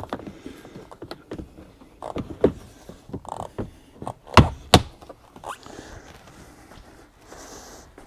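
Hard plastic cargo-area trim cover of a Honda Passport being handled and pressed into its clips: scattered clicks and knocks, with two loud thunks in quick succession about halfway through.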